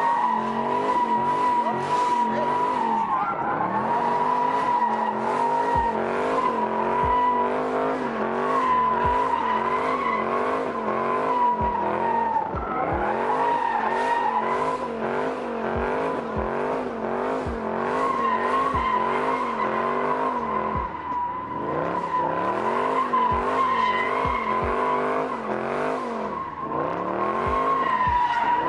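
Car drifting in continuous slides, its tyres squealing in a steady high tone while the engine revs up and down over and over, about once every second or so.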